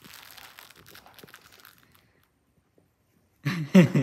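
Puppy chewing and tugging a plush toy: a soft crinkling rustle of fabric and filling that stops about halfway. Near the end, a short, loud vocal sound.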